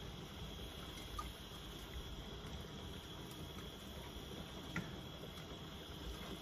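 Faint, steady bubbling of a large pot of seafood-boil liquid under a constant high-pitched whine, with two soft clicks as pieces of corn on the cob are dropped in from a steel colander.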